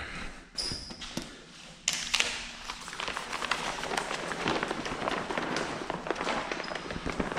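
Plastic paint protection film being handled: a steady crackling rustle full of small clicks that sets in about two seconds in, after a few light knocks.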